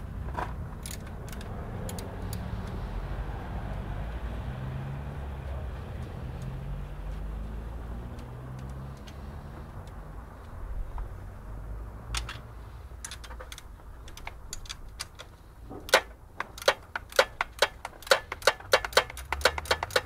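Hand ratchet clicking in quick strokes, about three or four a second, over the last few seconds as a 10 mm rocker-cover bolt is undone. Before that comes a low steady rumble with a few scattered clicks.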